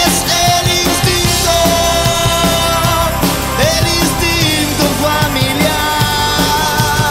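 A live rock band playing: a man singing over electric bass, drums and saxophone.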